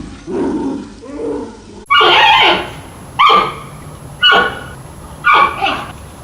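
Panda calling: a few softer low calls, then four loud, high bleating calls about a second apart, each falling in pitch.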